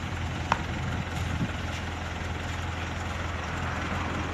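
Diesel engine of a Caterpillar E120B excavator running steadily with a low hum, and a short sharp click about half a second in.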